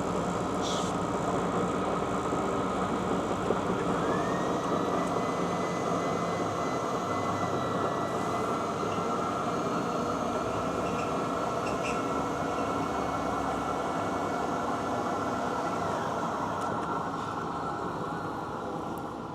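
South Bend Fourteen 14-inch tool room lathe running under power, a steady mechanical whir of its gearing and drive. About four seconds in, a thin high whine rises and then holds steady. It fades out a few seconds before the end, and the running grows gradually quieter near the end.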